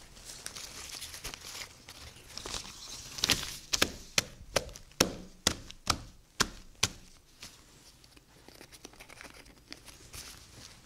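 Crumpled paper crinkling and rustling as it is handled, then a run of about ten sharp taps and knocks on the desk over some three seconds, then quieter rustling.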